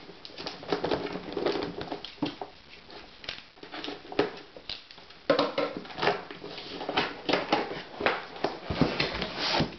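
Cardboard box being opened by hand: a seal peeled off the top and the lid flap lifted. Irregular rustling, scraping and tapping of cardboard, busier in the second half.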